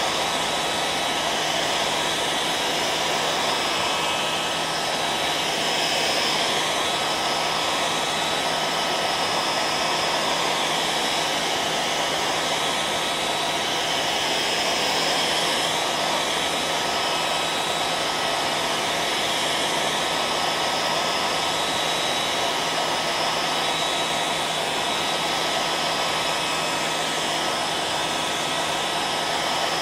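Hair dryer running steadily: a constant airy rush with a low motor hum and a thin steady whine, unchanging throughout.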